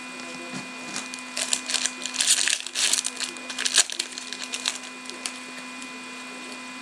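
Foil wrapper of an Upper Deck SPX hockey card pack crinkling and tearing open in the hands, a run of crackles from about one and a half to four seconds in, followed by a few light clicks as the cards are handled.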